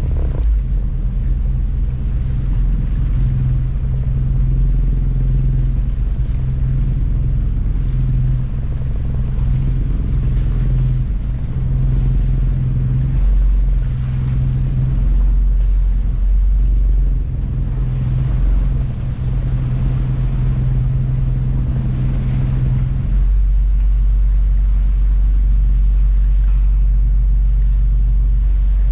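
A tour boat's engine runs with a loud, steady low rumble, heard from the bow deck. About 23 seconds in, the note changes and settles into a smoother, deeper drone.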